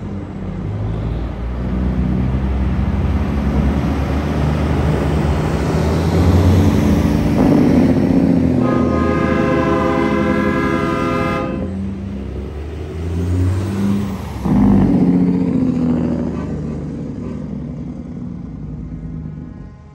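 Heavy truck diesel engines rumbling and revving, with a truck horn sounding once for about three seconds near the middle. A second rev swells loudly about three-quarters of the way in, then the engine noise fades away.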